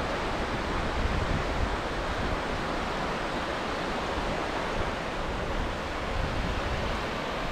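Small surf waves washing steadily onto a sandy, rocky shoreline, a continuous rushing hiss.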